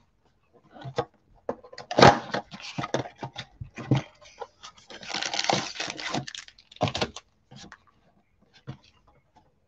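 A box of trading cards being torn open by hand: its packaging crackles and snaps, with a sharp crack about two seconds in and a longer rip of cardboard about five seconds in.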